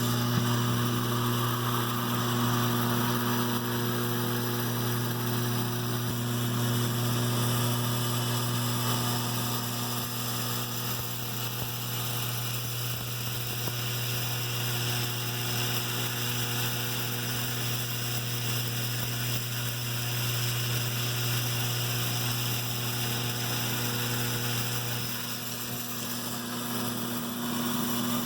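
Lionel 3656 operating cattle car and corral platform, their vibrator mechanism buzzing steadily on AC power to shake the plastic cattle along. The buzz eases somewhat near the end.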